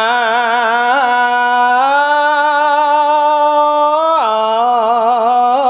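Khmer smot, Buddhist chanted poetry sung solo by a male monk. One syllable is drawn out in a long melisma with wavering ornaments, stepping up in pitch about two seconds in and back down just after four seconds.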